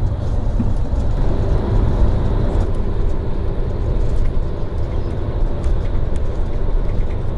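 Airport coach bus driving on a highway, heard from inside the cabin: a steady low rumble of engine and road noise.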